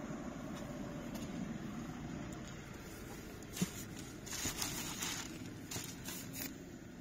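Clear plastic protective wrap over a car seat crinkling and rustling as a hand pulls at it, in a run of crackles starting about halfway in, just after a single sharp click. Before that, only a steady low background rumble.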